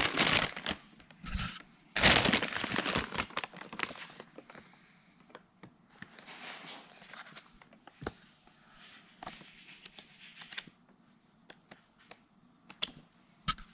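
Clear plastic bags around a set of coilover shocks crinkling loudly in bursts over the first few seconds, then softer rustling of paper and a few light clicks as an instruction sheet and a booklet are handled.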